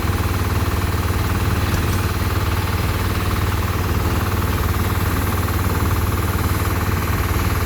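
Steady, fast mechanical rattle over a low hum, with no break.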